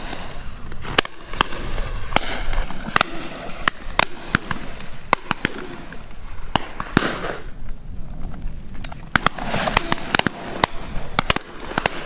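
Shotgun fire from several guns: a rapid, irregular scatter of shots throughout, some loud and close, others fainter and farther off. Under the shots, wind rumbles on the microphone.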